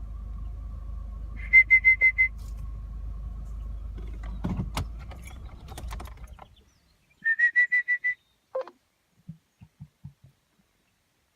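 Two short runs of rapid, high whistled notes, six or seven quick notes each, about six seconds apart, over a steady hum that dies away about halfway through. A few faint low pulses follow near the end.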